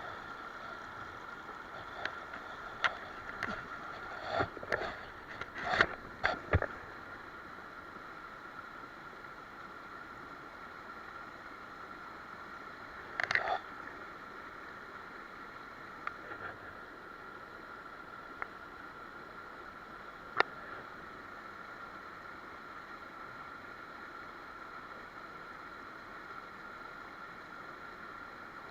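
Mountain stream running steadily, with a cluster of sharp clicks and knocks in the first several seconds and a few more later on.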